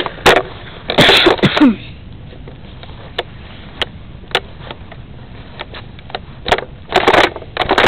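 Scattered knocks, clicks and rustles of a camera mounted on a Nerf blaster being carried and handled, with louder clatters about a second in and near the end.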